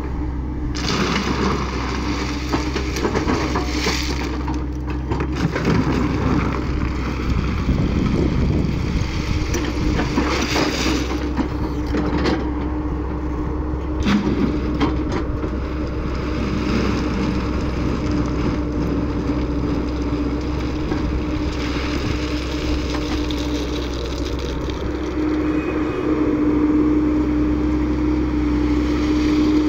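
Hyundai 140LC-series crawler excavator's diesel engine running steadily with a constant whine, while the bucket digs and rattles through crushed stone, with surges of gravel noise about a second in, around four seconds, and around ten to eleven seconds.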